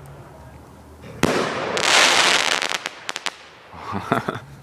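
Consumer aerial firework going off: a sudden loud bang about a second in, followed by a rushing hiss and then a quick cluster of sharp pops.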